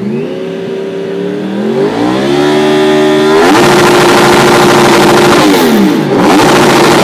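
2010 Yamaha R1's crossplane-crank inline-four through an Akrapovič exhaust, revved hard while the bike stands still. The revs climb in steps, are held high for about two seconds, fall back, then are snapped up again near the end.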